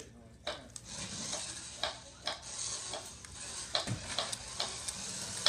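Remote-control toy Lamborghini Reventón driving across a hardwood floor: a steady hiss from its small motor and wheels, with scattered light clicks.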